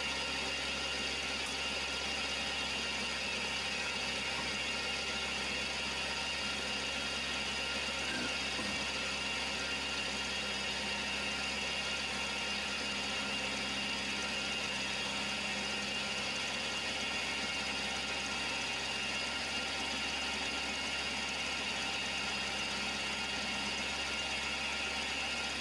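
Vertical milling machine running steadily, taking a light cut on a connecting rod.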